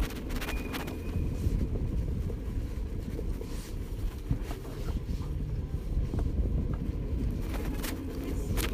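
Ride noise from an e-bike rolling along a paved street: a steady low rumble of tyre, road and wind noise on the microphone, with scattered light clicks and rattles. A faint steady high tone lasts about a second near the start.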